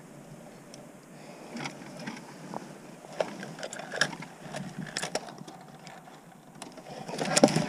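Scattered light knocks and rubbing from fishing gear being handled aboard a kayak, with a louder cluster of knocks near the end.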